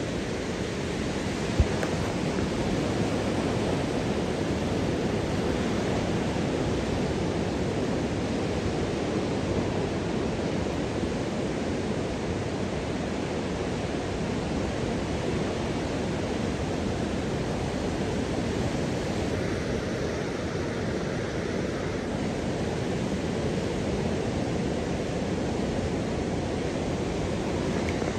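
Steady wash of small waves breaking along a sandy beach, with a single brief thump about one and a half seconds in.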